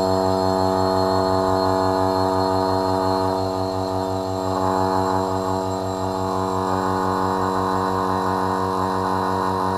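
Electric vacuum pump running steadily with a deep, fast-pulsing hum as it pumps the air out of a glass bell jar.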